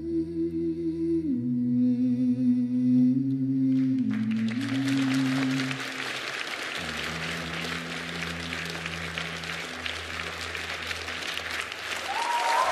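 Slow music ending on long held low notes, with audience applause breaking out suddenly about four seconds in and continuing.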